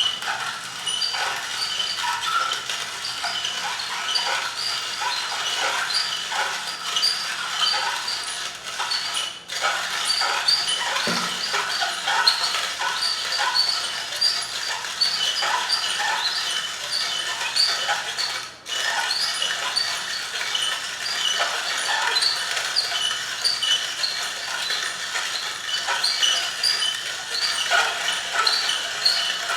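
Hand-cranked Stelton coffee grinder being turned clockwise, grinding a dose of coffee beans: a continuous run of crunching crackles and short, high squeaks. Turning pauses briefly twice.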